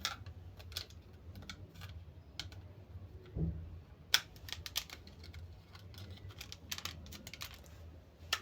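Irregular plastic clicks and taps from handling a battery-powered standalone smoke alarm as its cover is twisted shut, with one sharper click about four seconds in, over a low steady hum.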